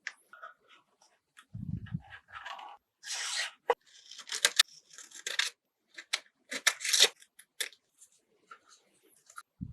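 Hand work on a 1:24 scale model car: bursts of tearing and rubbing noise, broken by short gaps, with a dull thump a little under two seconds in.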